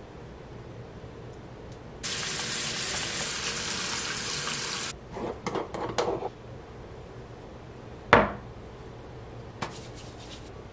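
Bathroom sink tap running for about three seconds, then shut off abruptly. A few short, softer noises follow, then a single sharp knock about eight seconds in.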